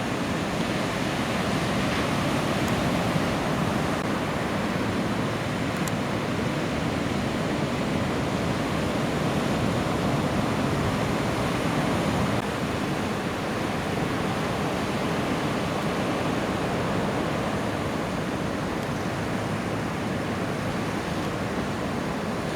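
Ocean surf: a steady, dense wash of breaking waves.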